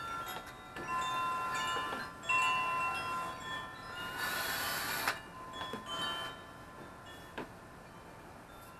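Wind chimes ringing, several tones overlapping and fading at different moments. About four seconds in, a cordless drill briefly bores through the bamboo wall for about a second.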